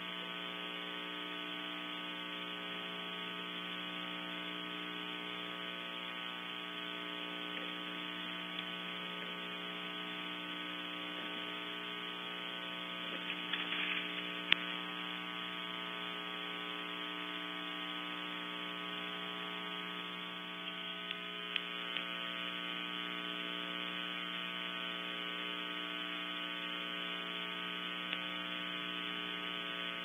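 Steady electrical hum and buzz on a nest camera's audio feed, unchanging throughout. A few faint scratches and clicks sit over it, with one sharp click about halfway through.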